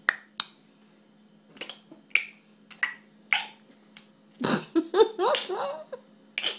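A string of short, sharp clicks, irregularly spaced about half a second apart. About four and a half seconds in comes a brief burst of voice sounds that slide up in pitch.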